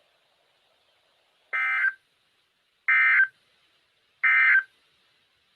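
Emergency Alert System end-of-message signal from a NOAA Weather Radio: three short, identical bursts of SAME digital data screech about a second apart. They mark the end of the warning message.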